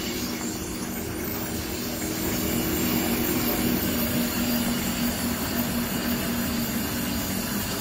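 Welly S-3 grain puffing extruder running steadily, a low machine hum over an even hiss, with its feed and cutter switched off while the last brown rice is pushed out of the flat nozzle.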